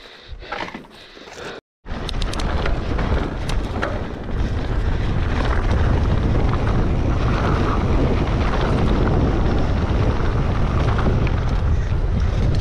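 A few panting breaths, then, after an abrupt cut, loud wind buffeting the microphone with a heavy low rumble and scattered clicks.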